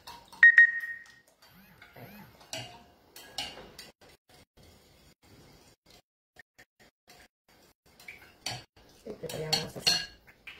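Kitchen utensils on a ceramic bowl while an oil-and-lemon dressing is made. A sharp ringing clink against the bowl comes about half a second in, followed by light scrapes and clinks of a metal spoon stirring. A burst of clattering comes near the end as a small glass container is handled.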